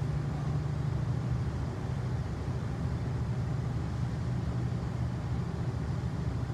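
Class 68 diesel-electric locomotive hauling its passenger coaches out on departure: a steady low engine drone over the rolling of the coaches as they pass.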